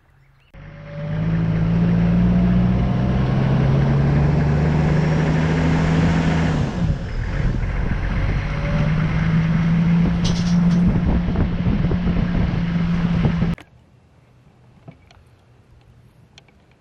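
Engine of an off-road vehicle driving along a bush dirt track, running at a steady pull with a brief dip in its note about seven seconds in. It cuts off suddenly a little before the end, leaving only faint background.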